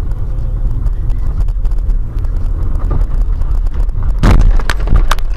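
Car driving, heard from inside: a steady low rumble of road and engine noise, with a burst of sharp knocks or bangs about four seconds in.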